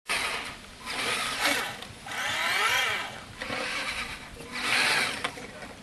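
Radio-controlled buggy driven through snow in about five short throttle bursts, its motor whining up and falling back in pitch with each burst.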